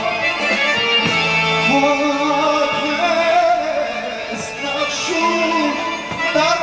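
Male vocalist singing an Armenian song live, with a melody that bends and holds notes over a band led by accordion.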